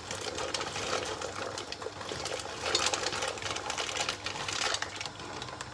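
Dry pasta poured from its bag into a steel pot of boiling water: a rapid, dense clatter of small pieces hitting the pot and each other, heaviest about three seconds in.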